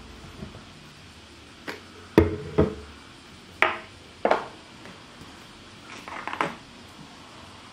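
A series of separate sharp knocks and clinks from hard objects being handled, about eight in all, the loudest a little over two seconds in.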